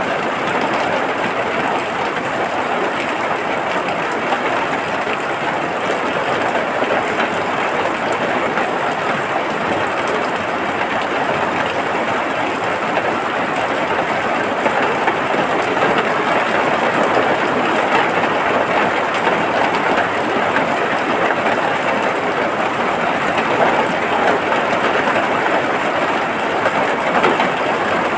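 Steady heavy rain, a dense even hiss and patter that holds at the same level throughout.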